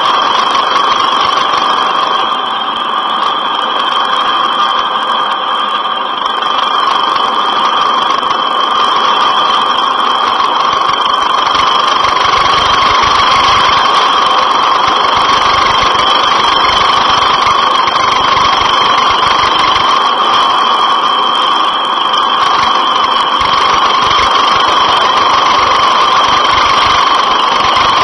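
Helicopter running nearby for a long stretch: a loud, steady engine whine over a broad wash of noise, with no letup.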